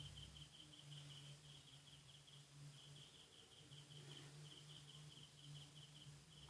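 Faint insect chirping, a steady train of short high-pitched pulses, over a low steady hum.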